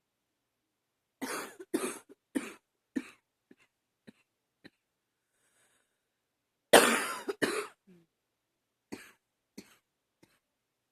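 A woman coughing in two fits, which she puts down to allergies. About a second in, a run of four coughs trails off into small ones. After a pause, a loud double cough comes about seven seconds in, followed by a few weaker coughs.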